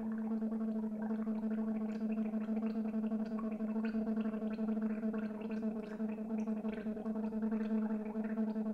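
A woman gargling water while voicing one long, steady pitch, the gurgle fluttering over the held tone. This is a voiced gargle used as a voice exercise: the water puts a resistance against the voice, on the same principle as bubbling into water.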